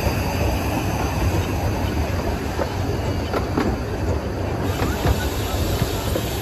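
Miniature steam railway train running along the track, heard from an open carriage: a steady low rumble from the wheels with irregular clicks as they pass over the rail joints.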